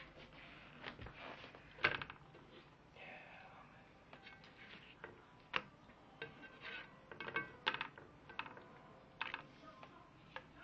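Spatula scraping and knocking against a frying pan as chicken cutlets are shifted in it. The clicks and scrapes come at irregular intervals, the sharpest about two seconds in.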